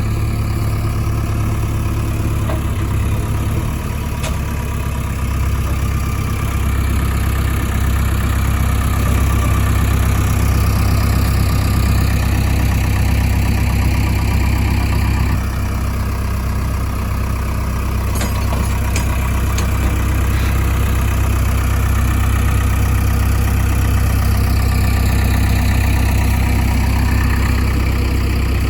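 Diesel engines of heavy farm and earthmoving machinery running continuously, swelling louder for stretches and easing off again as they work.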